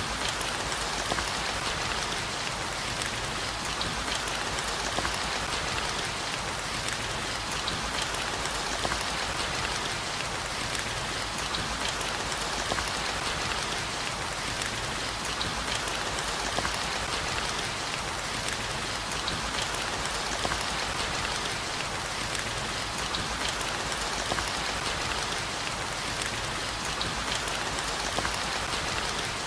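Steady heavy rain, an even hiss flecked with the ticks of individual drops, with no thunder.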